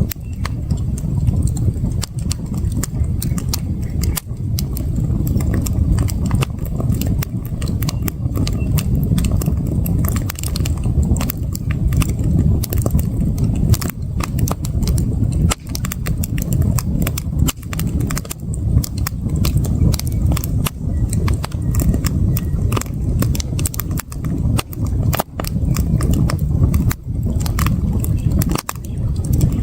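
Wood campfire crackling: many irregular sharp pops and snaps over a steady low rumble.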